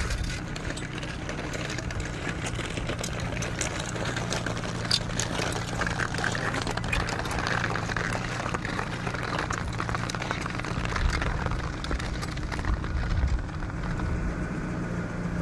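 Strong headwind rushing over the microphone, with a steady low motor hum underneath and scattered light clicks.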